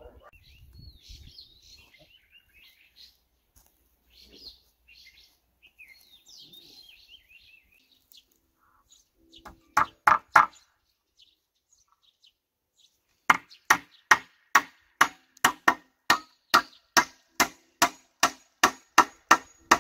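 Hammer nailing a wooden crossbar onto a wooden post: a short cluster of blows about ten seconds in, then a steady run of strikes, about two and a half a second, from a little past the middle. Birds chirp before the hammering starts.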